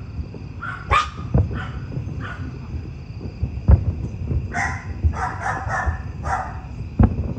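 Fireworks bursting some way off, with low booms every few seconds. Near the middle comes a run of short, repeated dog barks.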